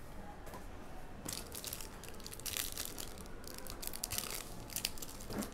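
Foil trading-card pack crinkling and tearing as it is ripped open by hand, in a series of short, sharp rustles that start about a second in.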